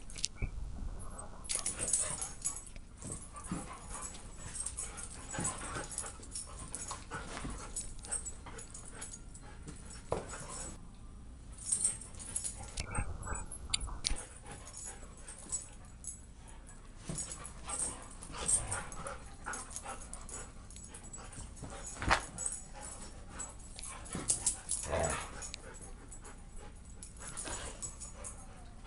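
Several huskies play-fighting: dog vocalisations mixed with scuffling and short knocks as they wrestle at close range.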